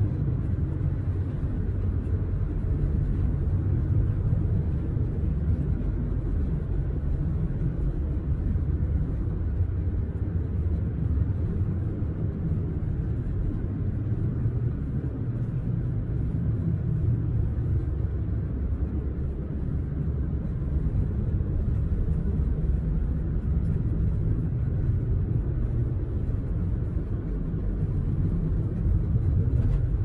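Steady road and engine rumble of a car driving along, heard from inside the cabin.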